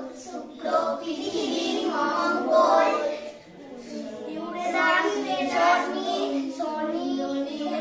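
Several children reciting a list of planet names together in Bengali, in a sing-song chant.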